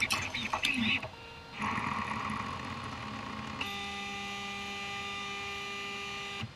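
3D printer stepper motors running through the last moves of a print, shifting in pitch at first. Then a steady pitched hum lasts about three seconds while the print head lifts clear of the finished part, and it cuts off sharply.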